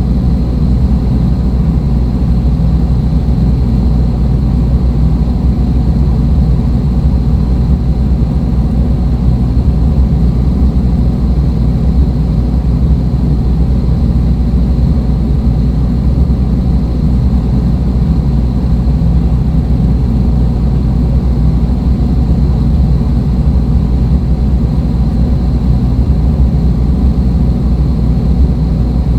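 Dark ambient drone music: a loud, steady low rumble heavy in the bass, with faint held high tones above it and no beat or change.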